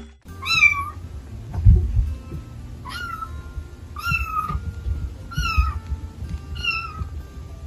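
A cat meowing five times, short calls that rise and then fall in pitch, spaced one to two and a half seconds apart, with a low thump about two seconds in.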